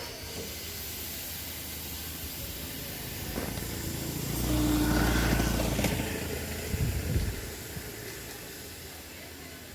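A vehicle passing: a low rumble with a hiss that swells about four seconds in and fades after six, with a few knocks shortly after.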